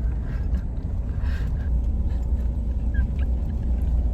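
Steady low road rumble of a car heard from inside the cabin while driving.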